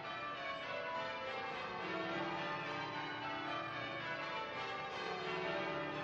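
Church tower bells ringing, many strikes overlapping into a continuous peal, with lower bells coming in about two seconds in.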